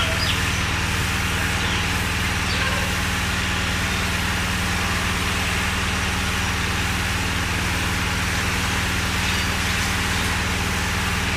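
Steady low mechanical hum of a running motor, even and unchanging throughout, with a few faint high chirps near the start.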